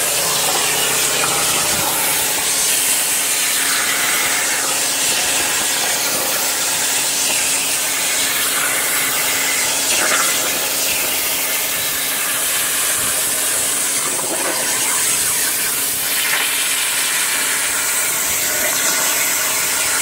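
CNC plasma torch cutting steel plate, a steady, loud hiss of the arc and its air jet, with a steady hum underneath.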